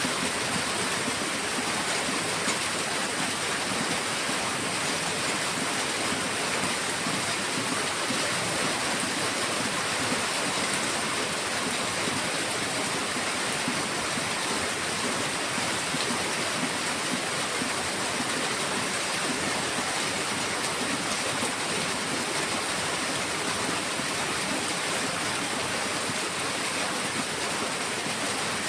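Heavy rain pouring steadily, a dense, even hiss that does not let up.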